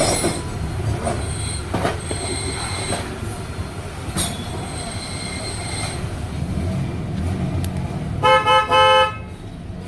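Steady traffic rumble with a few sharp metallic clicks, then a vehicle horn honks in about three quick toots near the end.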